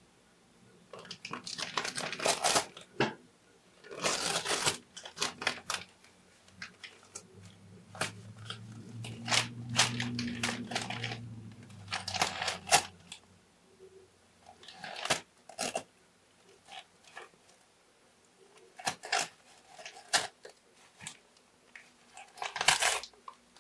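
Domestic cat tearing newspaper with its teeth and claws: irregular bursts of paper rustling and ripping, with short pauses between.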